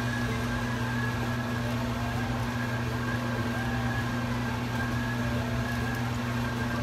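A steady, unchanging low machine hum with a faint higher whine above it.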